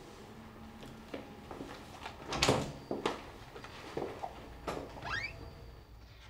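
Door and footstep sounds: a few soft knocks and thuds, the loudest about two and a half seconds in, and a short rising creak near the end.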